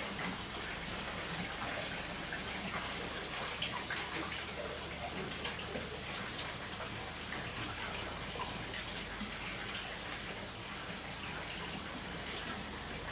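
Small wood fire crackling and hissing under an iron tripod stand, with scattered small pops. A steady high-pitched whine runs through it.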